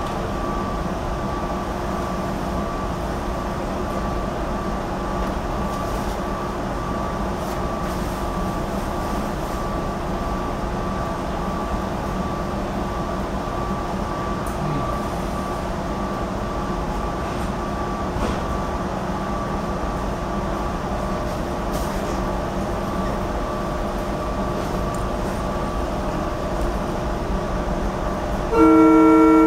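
Steady hum inside a GE Silverliner IV electric commuter railcar, with several fixed tones from its onboard equipment. Near the end comes one short, loud blast of the car's Leslie RS2M air horn as the train pulls out of the station.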